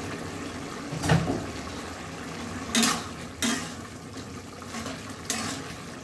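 Metal spatula stirring and scraping a thick mushroom and potato curry around a metal kadai, with about four louder scrapes against the pan at uneven intervals.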